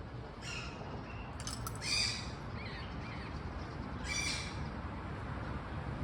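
Yellow-collared macaw giving a few harsh squawks, the loudest about two seconds in, over a steady low background rumble.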